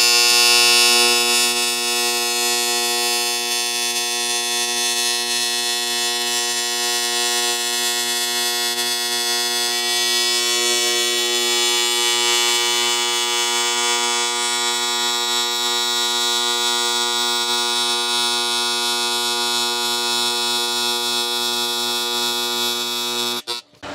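AC TIG welding arc on aluminum from a Miller Dynasty welder: a steady, even buzz with a hiss above it, held through one long weld pass and cut off suddenly near the end.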